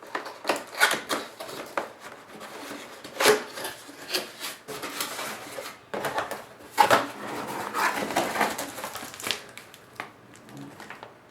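A cardboard box being opened and its packaging handled, with irregular rustling, scraping and knocking.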